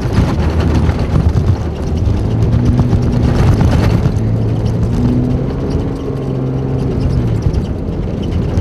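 Storm-chase vehicle being driven, heard from inside the cabin: a steady low engine and road drone whose pitch shifts a few times with engine speed, with a brief louder rush of road noise about three and a half seconds in.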